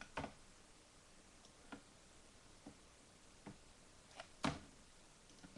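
A handful of separate clicks from a computer mouse and keyboard, spaced unevenly, with one louder click late on.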